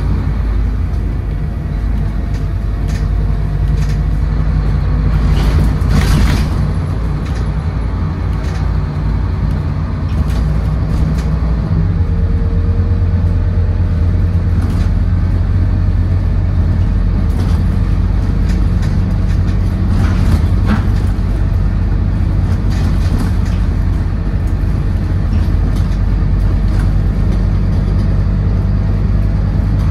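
Scania N230UD double-decker bus heard from inside the saloon, its five-cylinder diesel engine and ZF Ecomat automatic gearbox driving the bus along. Body rattles and knocks come in the first few seconds, and the engine note steps up about twelve seconds in and then holds steady.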